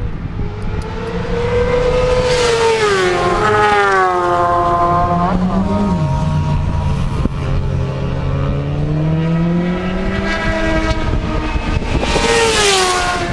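Sport motorcycle engines at high revs passing at speed, the pitch dropping as one goes by about two seconds in and another near the end. In between, an engine climbs steadily in pitch as it accelerates.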